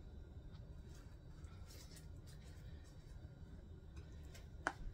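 Mostly quiet room with a low hum, and a silicone basting brush dabbing in a bowl of melted garlic butter giving a few soft taps. One sharper click comes near the end.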